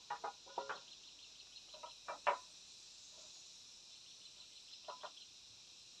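Steady high insect drone, with short clinks and clacks of clay roof tiles knocking together in small clusters as they are set in place. The loudest clack comes a little over two seconds in.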